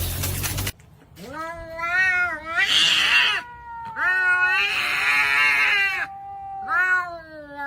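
A loud noisy passage cuts off under a second in. Then a domestic cat yowls in long, wavering, drawn-out meows, about four calls with short gaps between them.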